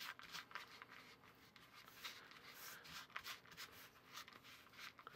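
Faint, irregular scraping and rubbing of a spatula working stiff walnut cookie dough in a plastic bowl.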